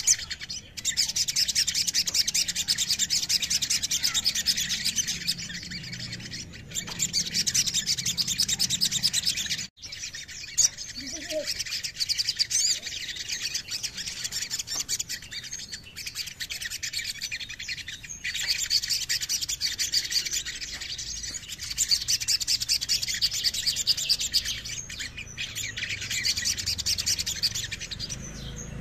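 Olive-backed sunbird singing: a near-continuous stream of rapid, high-pitched twittering trills and chatter, broken by a few short pauses.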